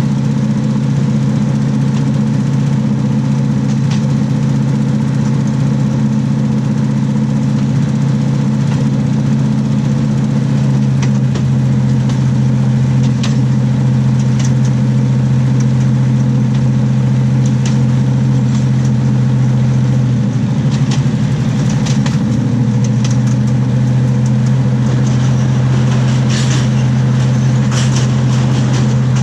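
Diesel railcar's underfloor engine running with a steady drone, heard from beneath the carriage, together with the rumble of the wheels on the rails. Scattered sharp clicks from the wheels and track cut through, more often near the end, and the engine note wavers briefly about two-thirds of the way in.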